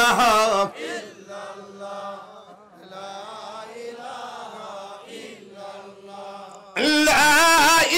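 Devotional chanting by a man's voice through a microphone and loudspeakers, loud and melodic in the first second and again from about seven seconds in. Softer chanting voices fill the stretch in between.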